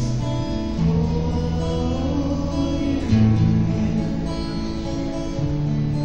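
Acoustic guitar strummed live, an instrumental passage with the chord changing about every two seconds.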